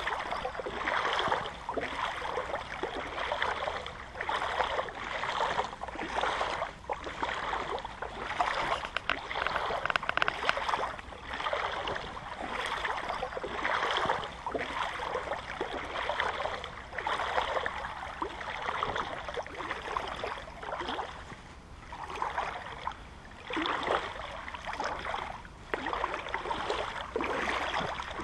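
Legs wading through shallow floodwater: a swishing splash with each stride, about one a second.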